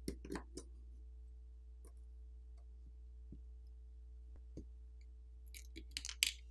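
Faint clicks and taps of a metal spudger and a plastic pry pick against a smartphone's circuit boards and frame. There are a few clicks right at the start, scattered single ticks, and a quick cluster of clicks near the end, over a steady low hum.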